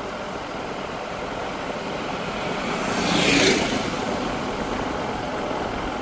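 Steady engine and road noise of a vehicle driving slowly, with one louder rush that swells and fades about three seconds in.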